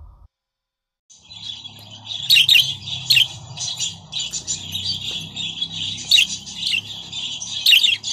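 A pair of budgerigars chattering and warbling: continuous rapid twittering, starting about a second in, with a few sharp, louder chirps.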